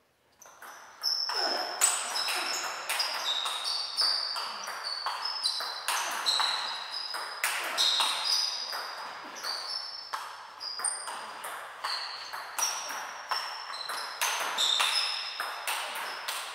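Table tennis rally: the ball is struck back and forth, and each racket hit and table bounce is a sharp, ringing click, about two to three a second. It starts about half a second in and keeps going.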